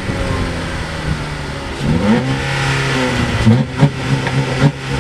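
Chrysler 200S exhaust, heard at the tailpipes: the engine, just started, runs at idle, its revs climb about two seconds in and stay raised, then it is blipped several times in quick succession near the end.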